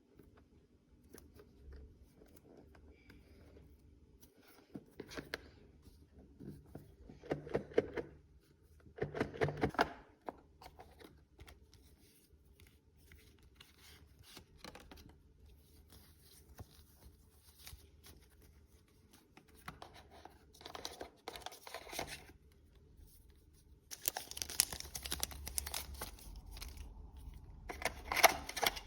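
AirPods Pro packaging being torn open and handled: paper and plastic tearing with crinkling and scraping, in several bursts, the loudest about seven to ten seconds in and again near the end.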